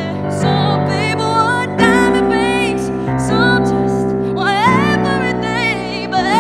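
A woman singing with gliding, ornamented vocal lines while accompanying herself with sustained chords on a digital stage piano, the chords changing every second or two.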